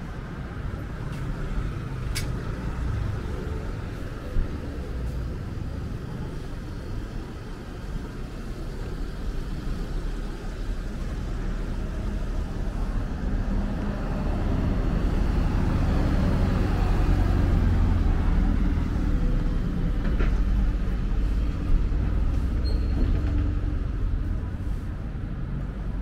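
Low engine rumble of a heavy road vehicle, growing louder past the halfway point and easing off near the end, over steady city traffic noise.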